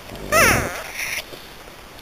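Newborn French bulldog puppy giving a short, high squeal that falls quickly in pitch, about half a second in.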